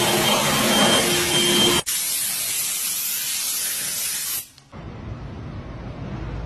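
Handheld car-drying blower blasting air over a wheel: a loud, steady rush of air with a faint whine. It cuts off suddenly about two seconds in, giving way to a quieter steady hiss, and near the end a lower, duller noise.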